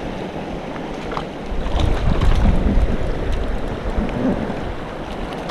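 Fast mountain river rushing over a rocky riffle, with low buffeting on the microphone that grows stronger for a couple of seconds near the middle.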